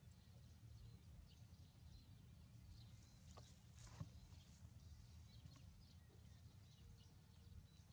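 Near silence: faint outdoor ambience with a low steady rumble and a few faint ticks, one small click about four seconds in.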